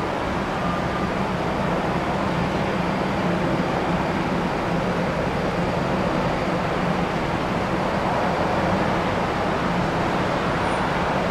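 Steady, even rumble of an airliner's jet engines at low power as the Boeing 767 taxis after landing, blended with the general noise of the airport.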